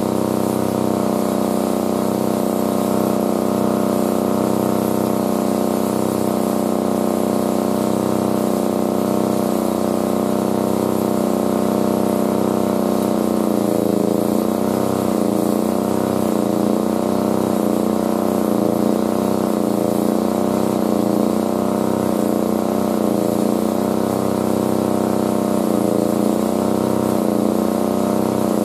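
An engine running steadily, its pitch wavering from about halfway in.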